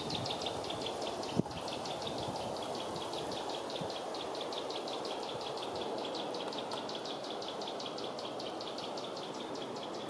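Great spotted woodpecker pecking at a pinecone wedged in bark: one sharp knock about a second and a half in and a few fainter taps. Behind it runs a constant fast series of high ticks, about eight a second, over a steady outdoor hiss.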